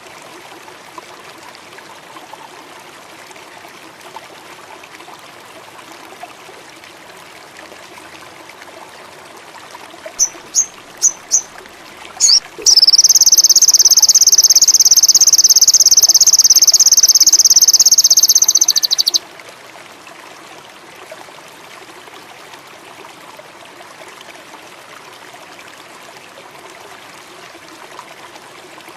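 Sogon bird singing: four short, high chirps, then a loud, high, continuous trill held for about six seconds before it cuts off. Behind it is a steady wash of running water.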